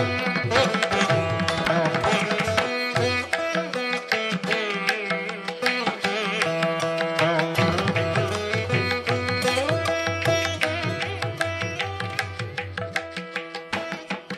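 Indian-style instrumental background music: plucked strings with gliding notes over a steady drone, with hand drums, fading toward the end.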